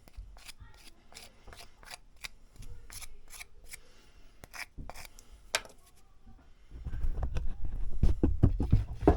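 Hand-tool work on an axe being rehafted: scattered light clicks and handling noises, then, about seven seconds in, a quick run of dull knocks that grows louder.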